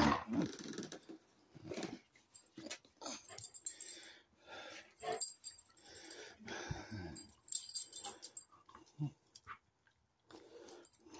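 A dog chewing and smacking at a summer sausage on the floor, in irregular short bursts with brief pauses.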